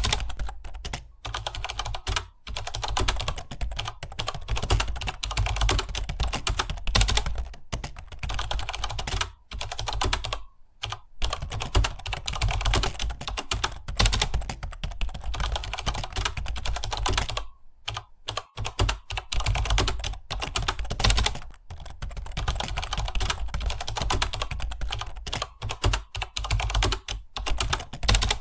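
Fast, continuous typing on a computer keyboard, many keystrokes a second, with brief pauses about ten seconds in and again about seventeen seconds in.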